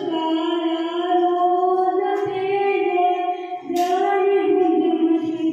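A boy singing unaccompanied into a handheld microphone, holding long notes in a slow melody. There is a brief click about four seconds in.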